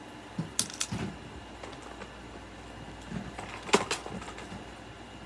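Small plastic fidget toys being handled and reached for: scattered light clicks and soft knocks, with one sharp clack a little before four seconds in.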